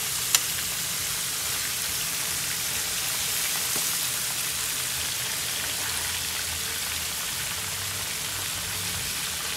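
Mud crab pieces frying in hot oil in a nonstick pan, a steady sizzle. One sharp click sounds about a third of a second in.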